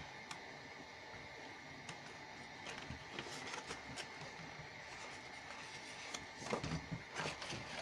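Scissors snipping through cardstock in short, faint cuts, a few near the middle and a cluster near the end, over a faint steady high hum.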